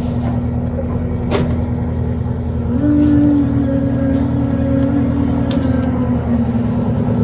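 Boat engine running steadily with a low, even drone. A second, slightly higher tone joins about three seconds in and drops away near the end, with a couple of faint clicks over the top.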